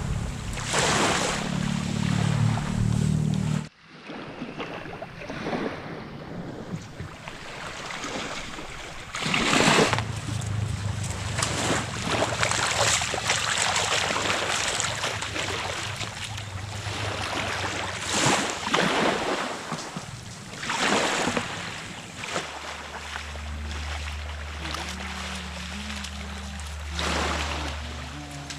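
Small waves washing onto a sandy shore, swelling every few seconds, with wind buffeting the microphone and feet splashing through shallow water. A steady low hum runs underneath at the start and again near the end.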